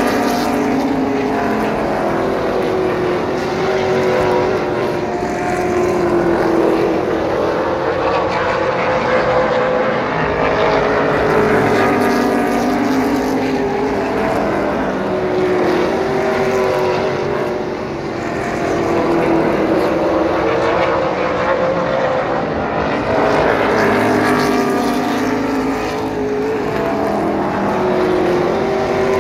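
Several stock car engines racing around a short paved oval. The sound swells and fades again and again as the pack passes, with engine pitch rising and falling.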